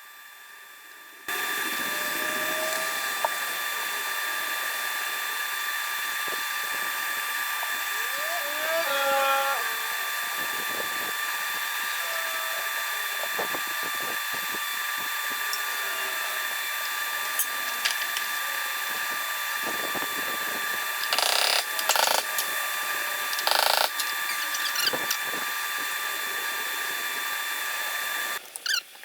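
A steady mechanical whine, like a power tool's motor running, starts suddenly about a second in and runs without let-up until it cuts off near the end. A few short knocks sound in the last third.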